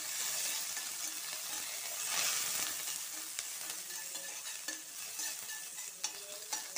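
Hot oil sizzling in a stainless steel kadai as curry leaves and mustard seeds fry, while a metal spoon stirs through them. The sizzle swells about two seconds in, and there are a few light spoon clicks against the pan near the end.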